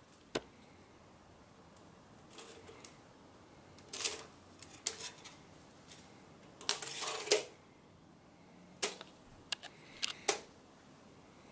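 A metal head gasket clicking and tapping against the head studs and the RB26 engine block as it is lowered over the studs and pressed flat onto the deck. The clicks are scattered, with a longer scraping rattle about seven seconds in.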